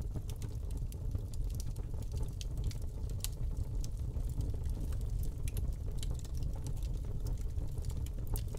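Wood fire crackling: scattered sharp pops and snaps over a steady low rumble.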